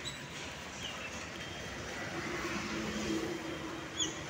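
Roadside traffic noise, a steady hiss that swells and fades as a vehicle passes about three seconds in, with a few short high chirps.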